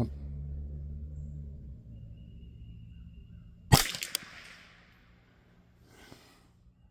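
A single shot from a CZ 512 semi-automatic .22 LR rifle about four seconds in: one sharp crack followed by a few quick, fainter clicks and a brief echo.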